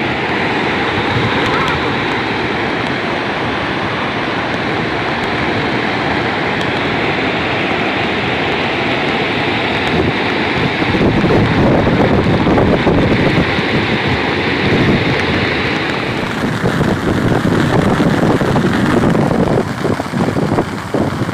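Steady rush of floodwater pouring over a dam spillway, with wind buffeting the microphone; it grows louder about eleven seconds in.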